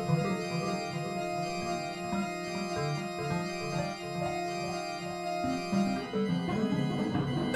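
Free-jazz keyboard music with an organ-like tone: a chord is held steady, then changes about six seconds in.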